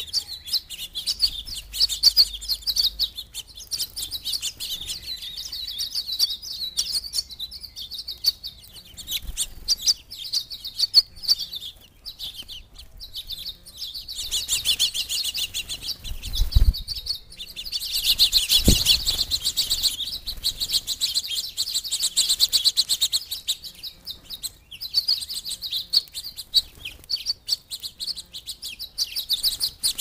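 Small songbirds, house finches and sparrows among them, chirping in a busy chorus of quick high chirps that thickens a little past the middle. Two soft low thumps come shortly after the middle.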